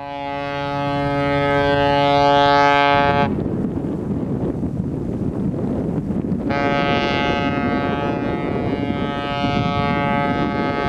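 Cruise ship Nautica's whistle sounding two long steady blasts for departure: the first, deep and full, lasts about three seconds; the second starts about six seconds in, higher without the deep tone, and is still sounding at the end. Wind buffets the microphone between blasts.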